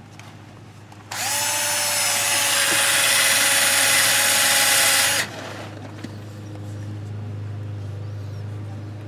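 Cordless drill spinning a wire wheel brush against a differential cover bolt held in locking pliers, cleaning the bolt. It is one steady run of about four seconds, starting about a second in: a scratchy brushing over the drill motor's steady whine, which then stops.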